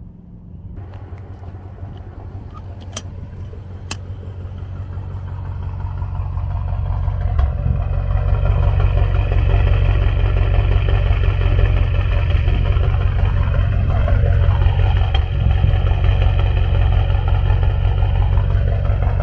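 A vehicle engine running steadily; its sound builds over a few seconds and then holds loud and even.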